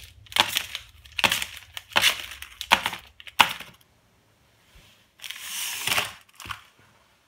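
Plastic-wrapped Corny cereal bars dropped one at a time onto a wooden cutting board, about six crinkly slaps over the first three and a half seconds. A longer crinkling rustle follows near the end as a hand sweeps the wrapped bars off the board.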